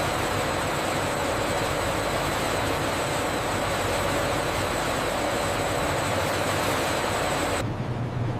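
Factory machinery running steadily: an even hiss with a steady high whine. Near the end it changes abruptly to a lower, steady hum.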